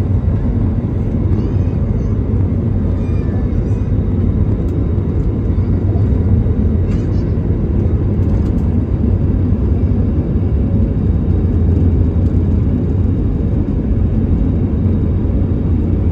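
Steady low cabin rumble inside an Airbus A321neo airliner taxiing, heard from a window seat over the wing.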